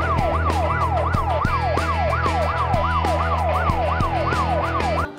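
Alarm siren sound effect: a fast wailing tone that sweeps down in pitch and snaps back up about three times a second, over a steady low hum. It cuts off suddenly near the end.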